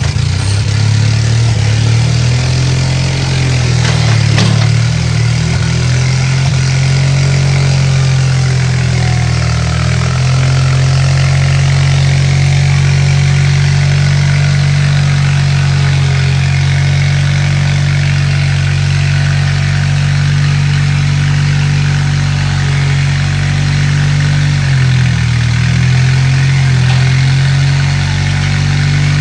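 Bobcat 732 skid steer's engine running steadily while the machine drives, its note shifting a little about ten seconds in and again near the end. The governor is kind of messed up and the choke is flapping loose.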